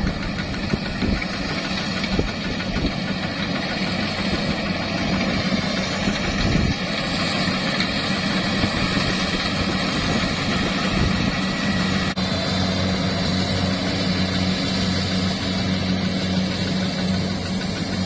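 Kubota combine harvester running steadily as it cuts and threshes rice: a continuous engine drone with a higher machinery whine layered over it. The sound changes abruptly about twelve seconds in, and the steady engine note is stronger afterwards.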